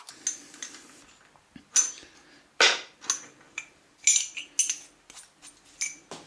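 Metal clamp-knurler arms clinking and knocking against each other and the vise as they are picked up by hand: a series of separate sharp metallic clinks, several with a short ring.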